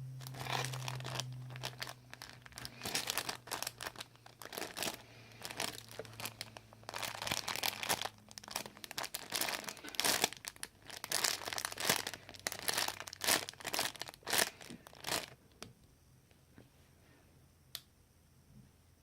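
Plastic crinkling and rustling in dense, irregular bursts as squishy toys are handled, dying away about fifteen seconds in.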